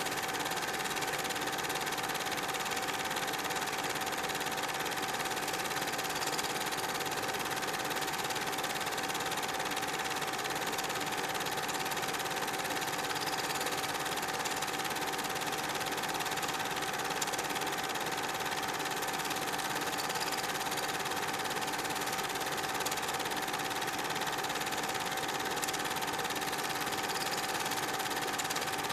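Super 8 film projector running: a steady mechanical whir with a constant hum that does not change when the picture cuts from scene to scene.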